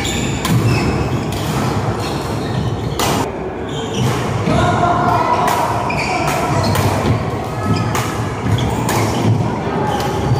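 Badminton play: rackets hitting the shuttlecock in sharp cracks at irregular intervals, with thuds of footsteps on the court and voices chattering underneath.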